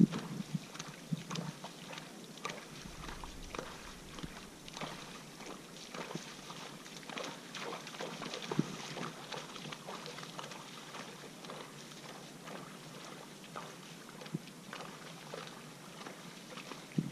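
Shallow creek water running and trickling, with many small irregular splashes and ticks, and one sharper click about eight and a half seconds in.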